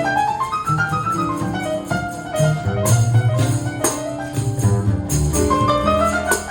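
A live band playing an instrumental passage: runs of melody notes climbing in pitch near the start and again near the end, over a bass line and drums with cymbal strikes.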